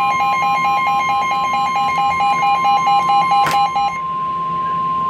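NOAA Weather Radio warning alarm tone, a single steady tone, sounding together with a receiver's rapid pulsed alarm beeping. The alert is for a severe thunderstorm warning. About three and a half seconds in there is a click, and the beeping stops soon after while the steady tone carries on.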